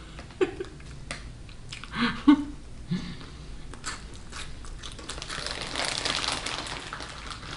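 Crunching and chewing on a hard, crisp snack, with sharp irregular crunches. From about five seconds in, a crinkly snack bag is handled and rustles.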